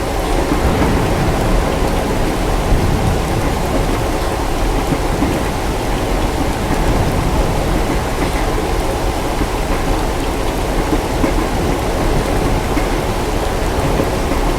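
Steady rain over a continuous low rumble, in a rain-and-night-train-compartment ambience with no sudden or distinct events.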